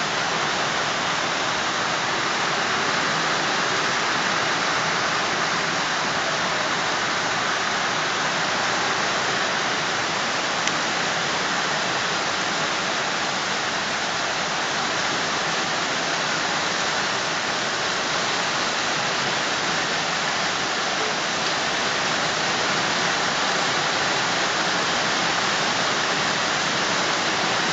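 Heavy monsoon rain pouring steadily, a dense, unbroken hiss with no breaks or separate drops standing out.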